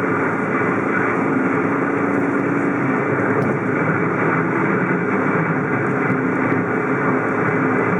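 Car driving along a city street: a steady engine hum under tyre and road noise.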